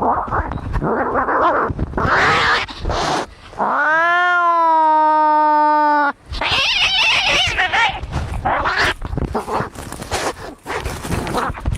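Angry cats fighting: harsh, noisy hissing and snarling cries, with one long, steady-pitched yowl lasting about two and a half seconds near the middle, then more hissing and spitting.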